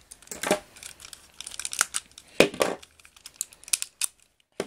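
Voltron toy robot being taken apart by hand: irregular clicks, snaps and clatter of the lion pieces being pulled off and handled, loudest about two and a half seconds in.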